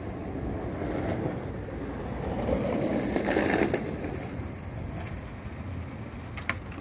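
A vehicle passing by: its noise swells to its loudest about three seconds in and then fades away. There is a short sharp click near the end.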